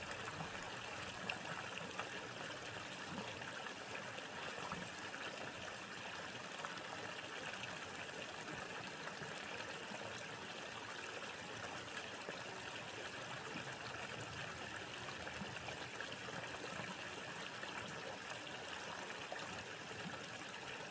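Mountain valley stream flowing steadily, a continuous trickle and rush of running water.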